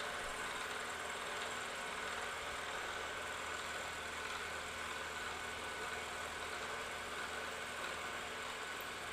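Milling machine running steadily, its 4-flute end mill cutting brass with half its width engaged.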